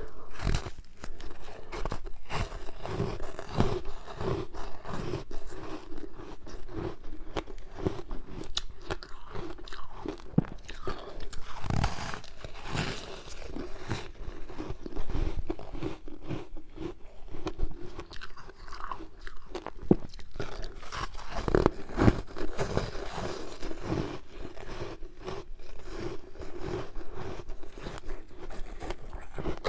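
A person biting and chewing ice: a continuous, irregular run of crunches.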